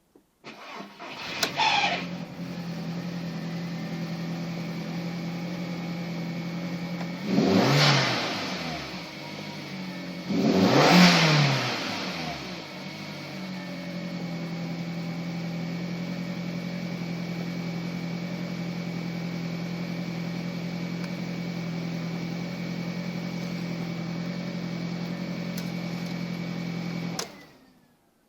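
Audi TT 1.8T turbocharged four-cylinder engine starting, settling to a steady idle, revved up and back twice, then switched off near the end. A faint steady high whine runs along with the engine and falls away after shutoff; this is the startup noise the owner is asking about.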